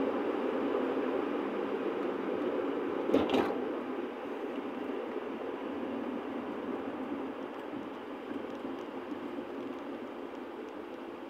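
Steady road and engine noise heard inside a moving car's cabin, slowly getting quieter as the car slows down. A short thump about three seconds in.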